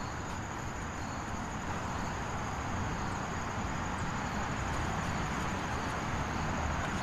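Steady outdoor ambience: an even hum of distant traffic with a thin, high, continuous chirring of insects.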